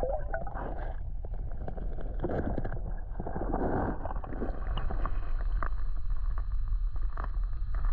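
Muffled underwater noise from a submerged camera in a river: a steady low rumble of moving water with scattered clicks and knocks as the bass is released.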